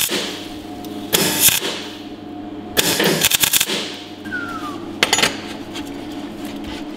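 MIG welder crackling as it tacks a steel exhaust pipe onto a scooter, in three short bursts about a second apart, the middle one the longest. A steady low hum runs underneath.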